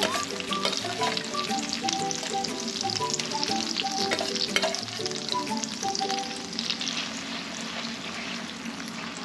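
Ground onion paste sizzling steadily in hot oil in a clay pot, with a metal spoon stirring it near the end. Soft background music with short notes plays underneath.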